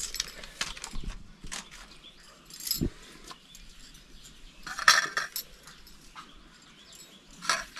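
Stainless-steel kitchenware clinking and knocking as a small steel bowl and spoon are handled over a steel plate on a concrete floor: a few scattered clinks, the loudest about five seconds in.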